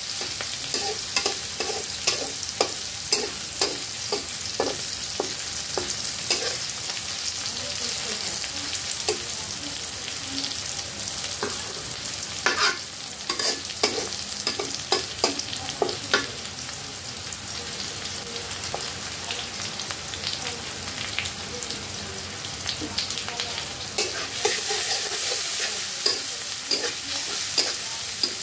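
Rice and green chillies sizzling in a metal wok while a metal spatula scrapes and knocks against the pan in quick stirring strokes. The strokes thin out for several seconds past the middle, and the sizzling grows louder near the end.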